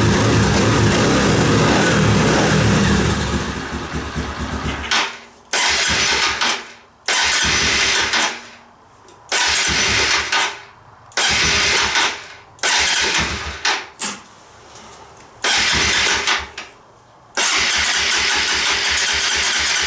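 Carbureted motorcycle engine on its first start after winter storage, running unevenly. It fades out about four seconds in, then fires in a series of short bursts with drops between them, then settles into steady running near the end.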